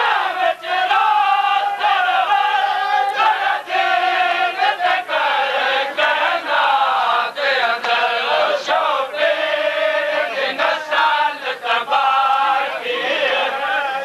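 A crowd of men chanting a noha together in repeated sung phrases with short breaks between them, the mourning lament of a Shia matam (chest-beating) gathering.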